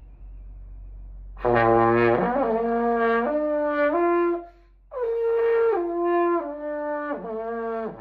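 A 3D-printed trombone being played: a phrase of held notes that step upward in pitch, a short pause for breath about halfway, then a second phrase of notes stepping back down.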